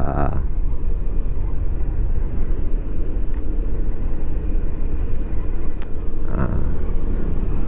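Steady low rumble of wind on the microphone and road noise from a Yamaha XMAX automatic scooter riding downhill.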